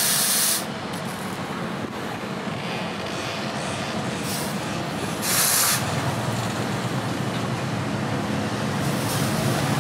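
Water hissing into steam on a hot forged axe blade: a short hiss at the start and another about five seconds in, over a steady low hum.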